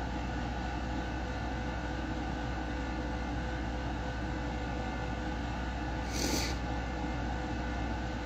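Steady low room hum with a hiss over it, like an air conditioner running. About six seconds in comes one short breathy sound.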